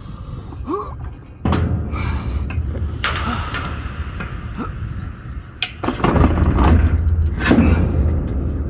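Low rumble with scraping and knocking from heavy metal radio hardware being wrestled by hand, with strained breathing and grunts. The rumble swells twice, about a second and a half in and again about six seconds in.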